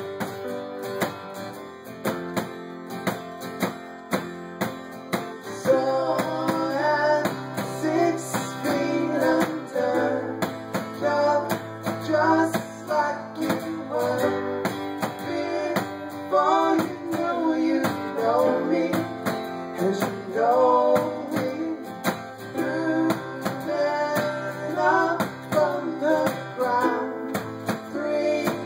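Live acoustic guitar strummed in a steady rhythm, with a man's singing voice coming in about six seconds in and carrying on over the strumming.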